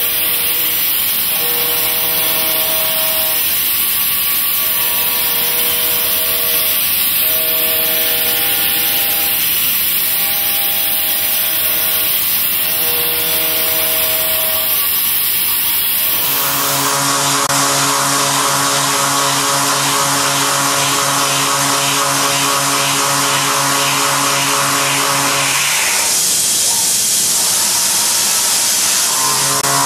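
Milling cutter cutting metal in a milling machine. A steady hiss runs under a humming cutting tone that comes and goes in passes of a second or two. About halfway in this gives way to a steadier, lower hum, which stops for a few seconds near the end and then starts again.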